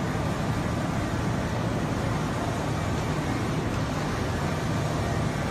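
Machinery running steadily: an even noise with a low hum underneath.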